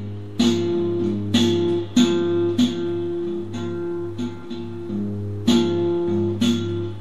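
Prepared acoustic guitar playing: sharp plucked attacks every half second to a second over a sustained low note.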